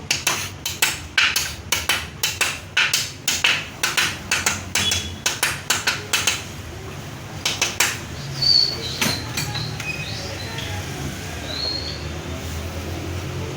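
Hammer blows, about three a second, during repair work on a Yamaha TTR 180 motorcycle. They stop about six seconds in, with two more strikes near the eight-second mark.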